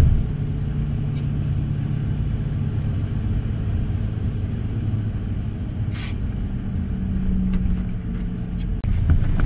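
Tour bus engine and road noise heard from inside the moving bus: a steady low rumble, with a sharp click about six seconds in.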